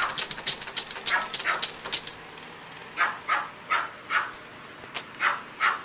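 Small dogs barking at each other: a fast, dense flurry of sharp barks for about two seconds, then short single barks about every half second.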